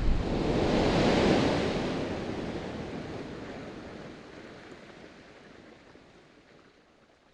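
The long rumbling, rushing tail of a mining blast, swelling briefly about a second in and then dying away slowly to nothing over about six seconds.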